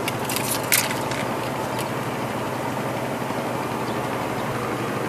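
A steady, low engine drone, with a few sharp clicks in the first two seconds.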